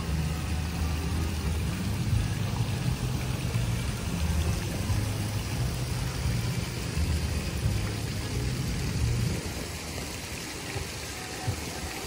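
Small fountain jets splashing in an ornamental pond, under a low rumble that eases about nine seconds in.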